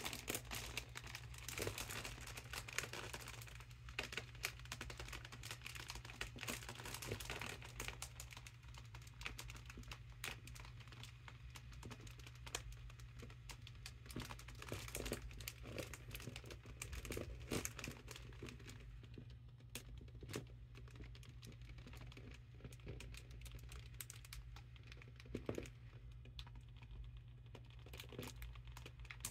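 Mylar foil balloon crinkling and crackling under a hand pressing it flat to squeeze the gas out through a straw in its valve. The crackles come irregularly, thick in the first half and sparser later, over a steady low hum.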